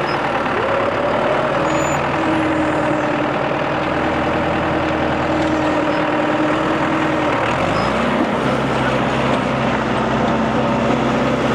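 John Deere 5520 tractor's diesel engine running steadily under load while pulling on a fallen oak. About eight seconds in the engine speed rises and holds higher.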